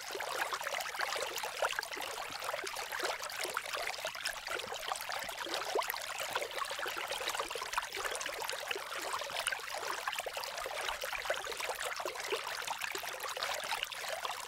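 Steady trickle of running water, an even fine crackling hiss that holds unchanged throughout.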